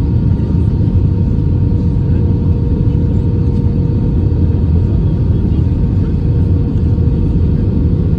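Steady cabin rumble of an Airbus A320-family airliner descending on approach with its flaps extended: engine and airflow noise heard from a window seat, with a faint steady hum over it.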